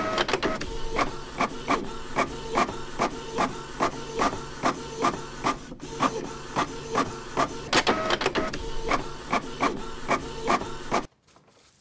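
A printer printing a page: a steady repeating mechanical rhythm of about two to three strokes a second over a continuous whir, which stops suddenly near the end.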